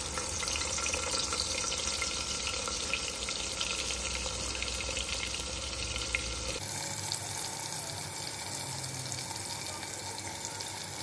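Sliced onions sizzling in hot oil in a pressure cooker, a steady frying hiss with fine crackling.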